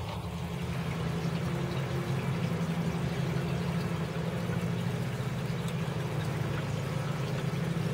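Water trickling and splashing steadily from a small garden pond waterfall, over a steady low motor drone.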